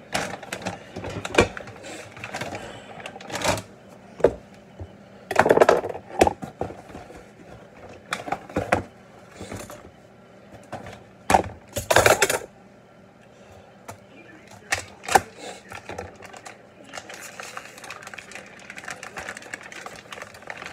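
Irregular knocks, clatters and rustles of packages and food being handled on a kitchen countertop, with the sausage's plastic packaging crinkling near the end.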